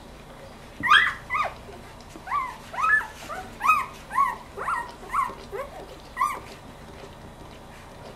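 Newborn golden retriever puppies squeaking and whimpering: a run of about a dozen short, high-pitched squeals, each rising and falling, starting about a second in and stopping about six seconds in.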